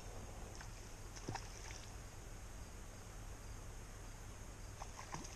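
Faint creekside outdoor ambience: a steady low rumble and hiss with a faint high steady tone, and a few soft clicks about a second in and near the end.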